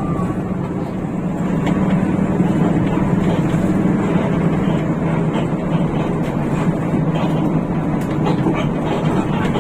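Rear-engined Hino RK8 bus's diesel engine and tyres giving a steady, even drone on the move.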